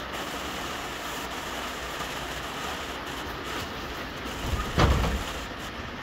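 Rain falling steadily on a small greenhouse, an even hiss with no rhythm. A short low thump about five seconds in.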